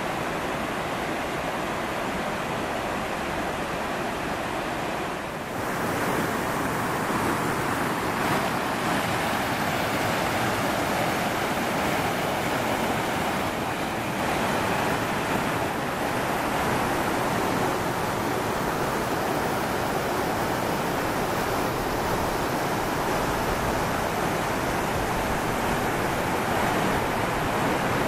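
Steady rush of river water tumbling over small cascades. About five seconds in it dips briefly, then comes back as a louder, closer rush.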